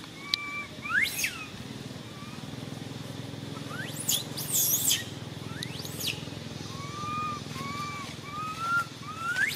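Infant long-tailed macaque crying: shrill squeals that sweep steeply up and down, about a second in, a cluster around four to five seconds, again at six and near the end. Softer short arched calls come between the squeals.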